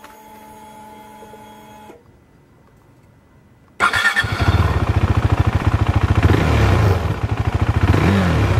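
KTM motorcycle ignition switched on: a steady electric whir for about two seconds, typical of the fuel pump priming, then quiet. Nearly four seconds in, the engine is cranked and fires, then settles into a steady, rapidly pulsing idle.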